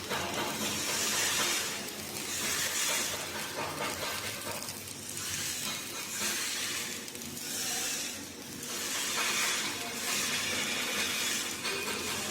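MIG welding arc crackling and sizzling in short runs of a second or two, about six of them, with brief pauses between beads.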